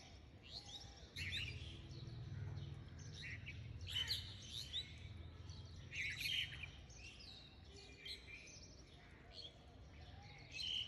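Birds chirping faintly, with short calls scattered through, over a quiet background.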